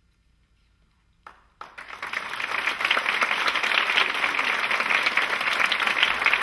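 Near silence for about a second, then a theatre audience bursts into applause. The clapping builds within a second to a steady, loud ovation.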